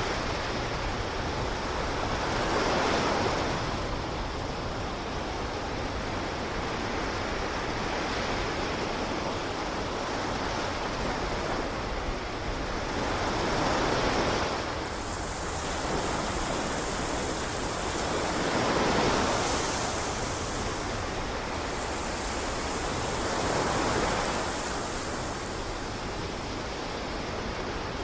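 Sea waves washing in on a rocky shore, a steady rush of surf that swells up about four times as waves come in.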